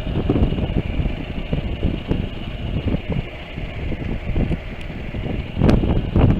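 Wind buffeting and rumbling on a helmet-mounted camera's microphone while riding a Honda NC700X motorcycle, with the bike's running noise beneath it. The buffeting eases a little midway and grows louder again near the end.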